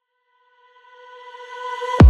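Background music fading in: a held synth tone swelling louder over about a second and a half, leading into a beat-driven track.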